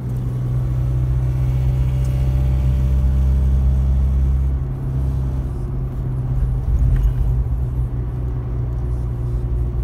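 Car driving, heard from inside the cabin: a steady low drone of engine and road noise, its lowest part shifting a little about halfway through.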